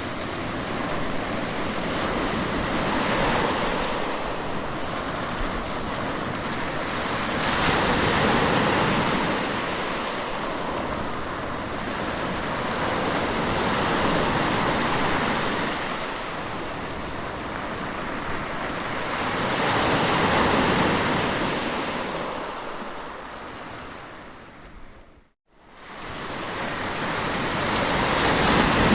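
Sea waves washing ashore, swelling and easing every five or six seconds. A few seconds before the end the sound drops away to an instant of silence and then swells back.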